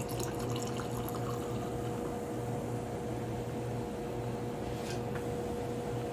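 Tonic water poured from a plastic bottle into glass beer mugs, a steady splashing and fizzing as the mugs fill one after another. A steady low hum runs underneath.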